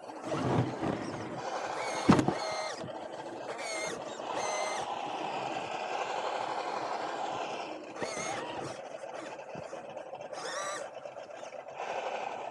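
Scale RC crawler's electric motor and gear drivetrain whining in short throttle bursts, the pitch rising with each burst, over a steady running hum. A sharp knock about two seconds in.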